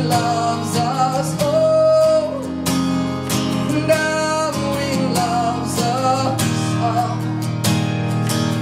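A man singing live to his own strummed acoustic guitar: steady strumming under long, held vocal notes that slide between pitches.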